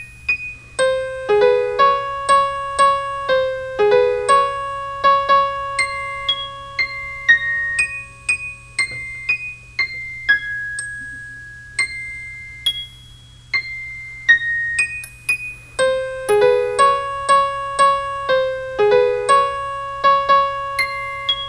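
Self-made instrumental keyboard music in an electric-piano sound, recorded in poor quality through a cheap microphone. A melody of struck notes, each fading away, is played over a steady low hum, and the same phrase starts over about three-quarters of the way through.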